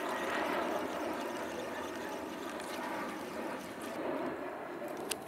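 Airliner flying overhead, its steady jet noise slowly fading away. A single sharp click near the end.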